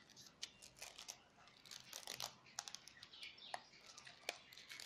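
Faint, scattered light clicks and crackles of a papery sola wood flower being handled and pressed.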